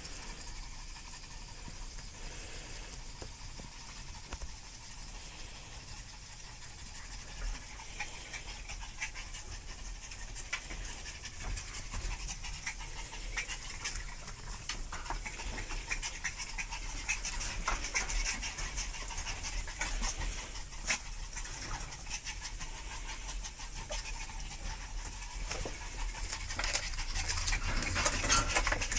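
Chihuahua puppies panting and scrabbling, their claws ticking on a hard floor, with the ticking busier and louder near the end.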